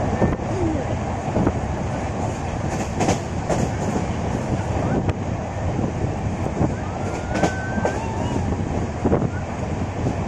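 Moving passenger train heard from inside a coach: a steady running rumble with irregular sharp clacks of the wheels over the rail joints.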